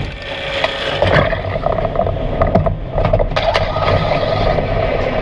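PAX mine train roller coaster climbing its lift hill: the train and lift mechanism run with a steady rumble and hum, broken by irregular sharp clacks and rattles.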